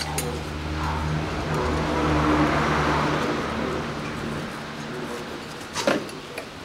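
A motor vehicle's engine runs with a steady low hum, its noise swelling to its loudest about two and a half seconds in and then fading away. A sharp knock comes near the end.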